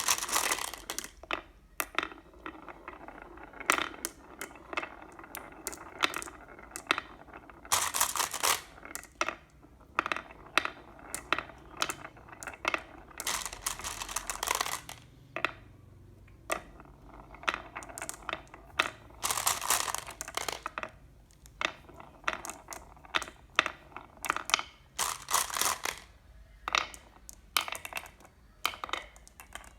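Glass marbles rolling and clattering down a handmade wooden marble-run track: irregular clicks and knocks, with denser bursts of rattling now and then as several marbles strike the wood and each other.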